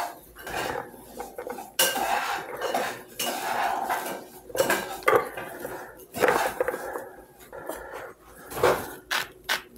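Sea salt grinder being twisted over raw rib eye steaks, giving irregular bursts of gritty grinding, along with the handling noise of the steaks being turned over on a wooden cutting board. A quick run of sharp clicks comes near the end.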